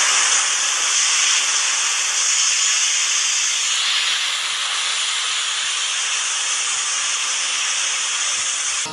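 Garden hose spray nozzle spraying a steady, loud hissing jet of water onto cardboard, its tone shifting slightly about halfway through.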